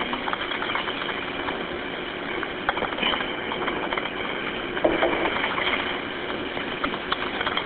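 Steady hiss of a telephone line on a recorded 911 call, with scattered light clicks.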